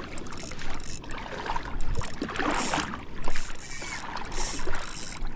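Water sloshing and splashing close to the microphone in irregular bursts, with no steady tone.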